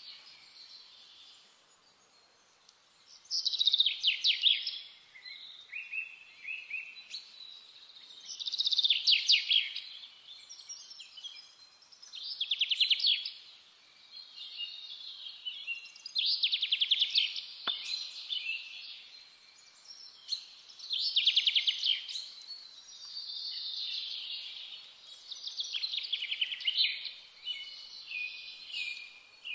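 A bird singing a loud, fast trilled phrase again and again, about every four seconds, with softer twittering between the phrases.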